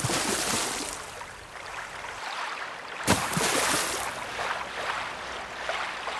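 Intro sound effect of rushing, water-like whooshing, with a sharp fresh surge about three seconds in.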